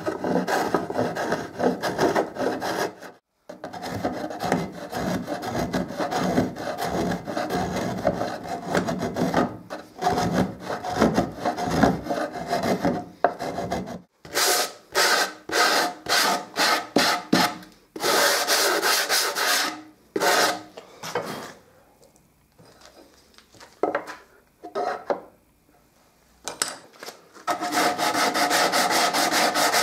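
A spokeshave shaving the sawn curved edge of a wooden lid smooth in repeated scraping strokes, with a run of louder, separate strokes around the middle and a quiet pause after it. Near the end, quick even rubbing strokes of a sanding block along the edge.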